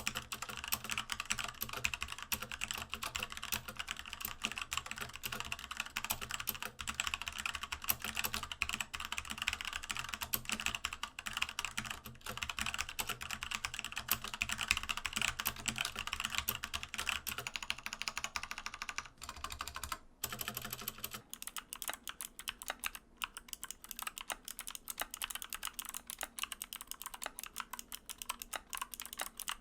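Fast typing on a mechanical-switch keyboard, a dense stream of key clicks and bottoming-out taps. About twenty seconds in it breaks off briefly, then resumes with a thinner sound and less low hum, as from a different switch or board.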